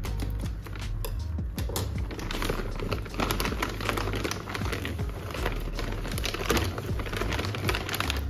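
Plastic courier mailer bag crinkling and rustling with irregular crackles as it is cut open and pulled apart by hand.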